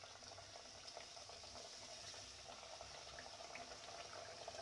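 Faint, steady sizzling and bubbling of kachoris deep-frying in hot ghee, with scattered small crackles.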